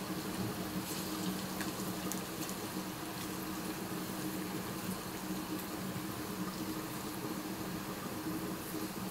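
Marinated chicken 65 pieces deep-frying in hot oil in a steel kadai: a steady sizzle with small crackles and pops, over a low steady hum.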